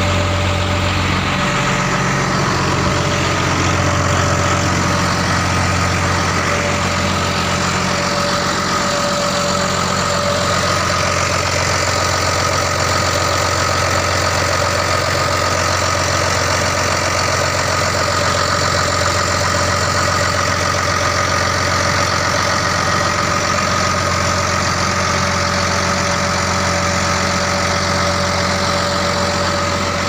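Heavy engine idling steadily, a continuous low hum with a steady high whine above it.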